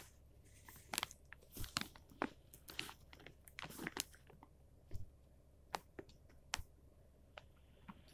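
Crunchy chewing of dry cornstarch mixed with water chestnut starch, eaten by the spoonful: a dense run of crisp crunches in the first half, then single crunches about once a second.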